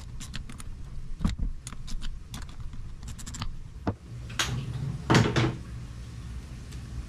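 Hand tools and small metal parts being handled during engine disassembly: a scattered run of sharp clicks and light knocks, with a louder scraping clatter about five seconds in, over a steady low hum.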